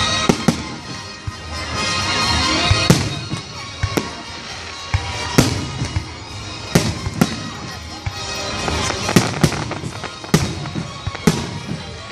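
Aerial fireworks shells bursting: a rapid, irregular string of sharp bangs, a dozen or more, over continuous lower noise between them.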